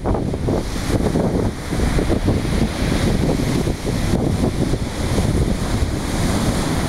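Wind buffeting the microphone with a steady rumble, over the wash of sea surf.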